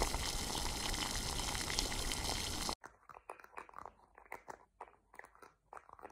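Pepper cream sauce simmering in a pan: a steady bubbling hiss at first. About three seconds in it cuts to a thick sauce letting out scattered soft pops as bubbles burst.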